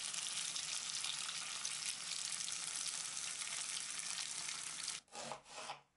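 Potato sticks sizzling steadily as they fry in hot oil on high heat, cutting off abruptly about five seconds in.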